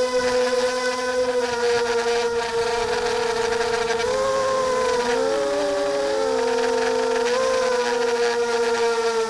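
Ghost 300 FPV drone's motors and propellers whining steadily at one pitch. Around the middle, the individual rotors' tones briefly drift apart and rejoin twice.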